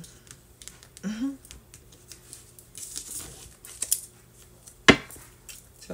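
A stack of round oracle cards being shuffled and handled, making light card-on-card clicks and rustles. A single sharp tap comes near the end.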